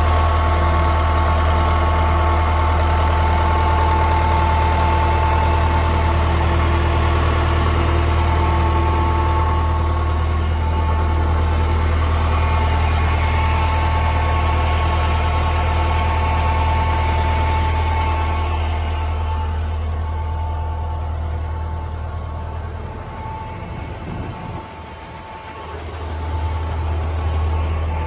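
Link-Belt truck crane's diesel engine idling steadily with an even, unchanging hum. It fades about two-thirds of the way through and grows louder again near the end.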